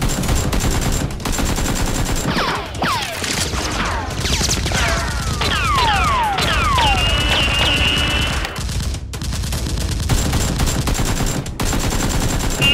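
Rapid automatic gunfire, a dense fusillade of shots, with a run of falling whistles through the middle, mixed in as action sound effects for blasters being fired.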